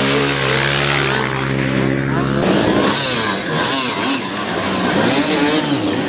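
Off-road racing motorcycles running hard through deep sand, several engines at once. The engine note holds steady at first, then changes abruptly about two and a half seconds in to engines revving up and down.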